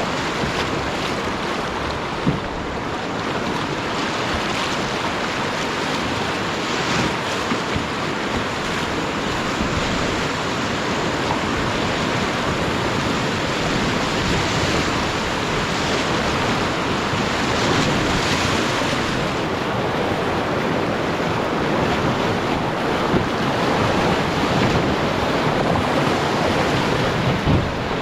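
Steady rush of river rapids, with wind on the microphone.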